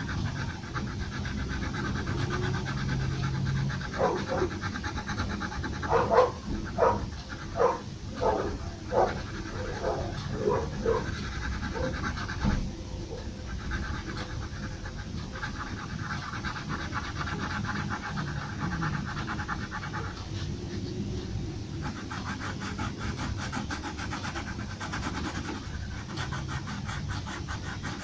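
Pencil strokes scratching on paper: a run of about a dozen short back-and-forth strokes in the middle, over a steady background hum and hiss.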